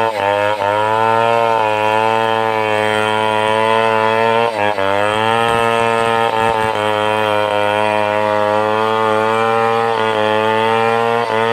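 Stihl 070's single-cylinder two-stroke chainsaw engine running at high revs while cutting timber lengthwise. Its pitch sags briefly under load several times and comes straight back up.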